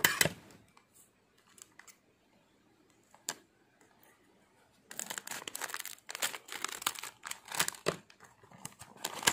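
Plastic LEGO Minifigures blind bag being cut open with scissors and handled. There is a loud crinkle at the very start, a few faint ticks, then dense crinkling of the wrapper from about halfway through.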